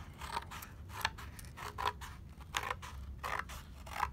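Scissors cutting through thin snack-box cardboard: a series of short, irregular snips as the blades close and the card crunches.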